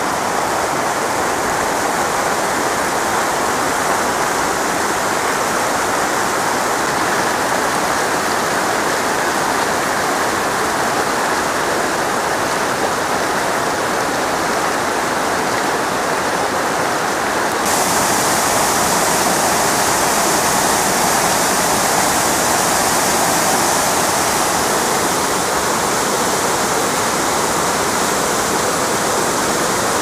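Steady rush of falling water from a waterfall and its rocky cascades, a continuous noise without breaks. About 18 seconds in it turns brighter and a little louder.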